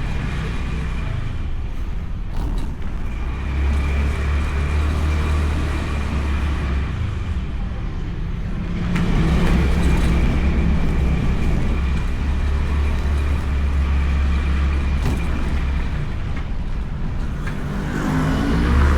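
Honda Beat scooter under way, recorded from its bike-mounted action camera: a steady wind rumble on the microphone over the engine and road noise. Near the end the engine note rises as the scooter speeds up.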